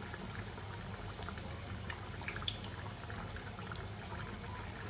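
Papad wrap deep-frying in hot oil in a kadhai: a steady soft sizzle with scattered small crackles.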